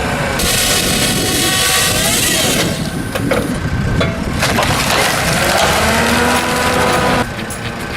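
Heavy wood-processing machinery running under load, engine and working noise with wood crunching. The sound changes abruptly about seven seconds in.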